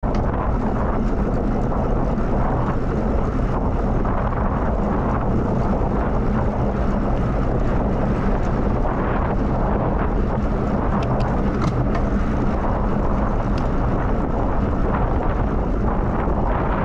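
Steady wind rush on the camera microphone of a moving bicycle: a loud, even low rumble with no change through the ride.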